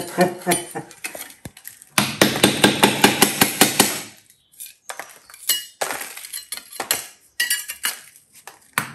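Hammer striking a wide steel scraper to chip old ceramic wall tiles loose, with metallic clinks and scraping. A dense run of quick blows comes about two seconds in, followed by scattered taps and scrapes.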